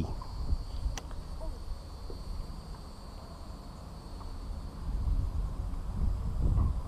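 Wind rumbling on the microphone, growing stronger near the end, over a faint steady high drone of insects in the marsh grass. One light click about a second in.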